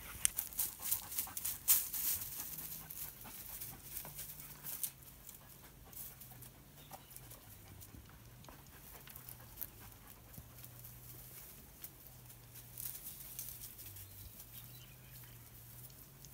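Shoes and hands scuffing and scraping on rough rock as a man scrambles up a boulder, mostly in the first few seconds. A dog below makes a faint, low wavering whine.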